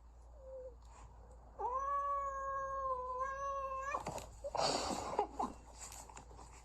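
A cat giving one long, drawn-out yowl at a steady pitch for over two seconds, after a short faint mew. It is followed by a second or so of harsh, noisy scuffling sound.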